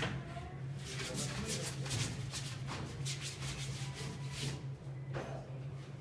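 Paint being scrubbed onto a canvas in quick rubbing strokes, about one a second, over a steady low hum.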